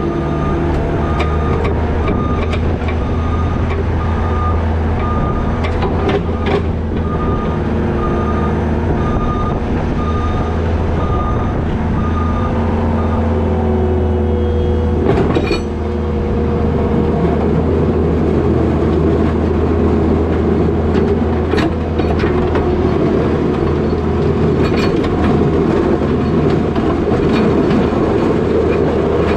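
New Holland L220 skid steer's diesel engine running steadily while plowing wet snow with a box plow, with occasional knocks and clanks from the plow and loader. A pulsing beep sounds through the first half.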